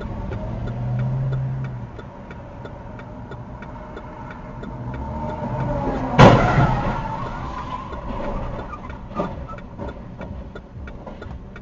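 Car turn signal ticking steadily inside the cabin, under engine and traffic noise. About six seconds in comes one loud collision impact, a crash with a ringing, rattling tail that dies away over a second or two.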